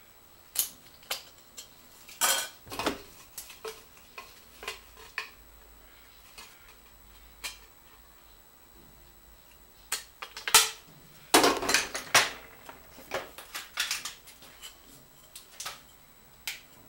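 Tin snips cutting into the thin steel of a food can: irregular sharp metallic snips and clinks. They come in a flurry from about half a second in and a denser one from about ten seconds in.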